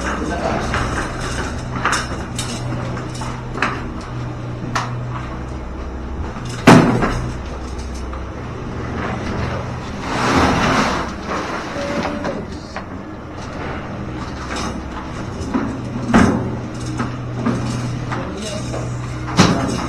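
Building-site work noise: scattered knocks and clatters over a low steady hum that drops out and comes back, with one sharp bang about seven seconds in.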